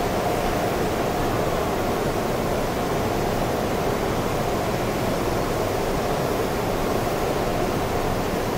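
Electric arc furnace running: a loud, steady, rough noise with a faint steady hum held underneath.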